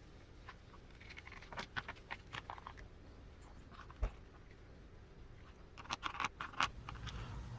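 Small plastic and metal RC transmission parts being handled and fitted together: faint scattered clicks and taps, a sharper knock about four seconds in, and a quick run of clicks near the end.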